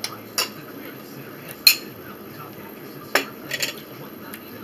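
A metal fork clinking against a small ceramic plate: three sharp clinks spaced more than a second apart, then a quick cluster of lighter clinks near the end.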